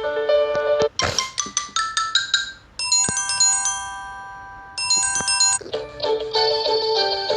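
Samsung Galaxy Tab A6 ringtones, several different ones in turn: short bell- and mallet-like melodies and chimes, each cutting off suddenly as the next starts. The middle one is a few chime tones left to ring and fade.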